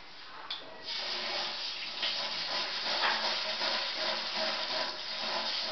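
Kitchen tap running into a steel mesh strainer of urad dal over a stainless-steel sink, a steady splashing rush of water that starts about a second in as the dal is rinsed.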